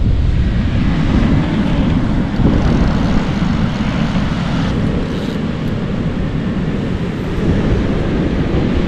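Steady low wind noise buffeting the microphone.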